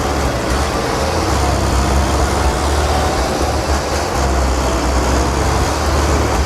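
A motor running steadily, with a strong low hum under a broad mechanical noise.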